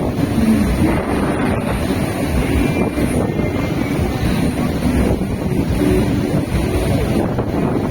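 Steady roar of rushing waterfall water, with wind buffeting the microphone.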